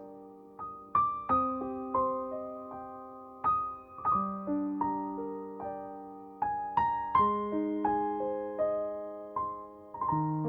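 Background music: a slow, gentle piano piece of struck notes and chords, each note ringing and fading.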